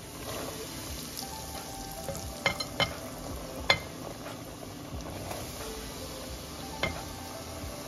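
Raw home-cut potato fries going into a pot of hot oil, which fries with a steady bubbling sizzle. A few sharp clicks stand out: three between about two and four seconds in, one near the end.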